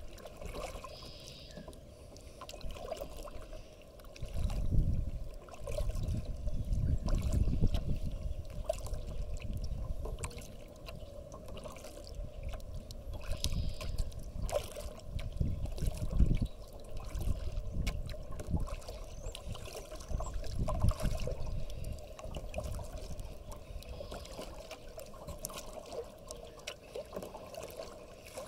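Kayak being paddled: water drips and splashes off the paddle and laps against the hull in many small ticks and trickles. Surges of low rumble come and go, the loudest about five to eight seconds in.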